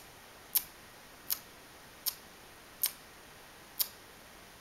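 A series of five sharp, high-pitched clicks, about one every three-quarters of a second, over faint room hiss.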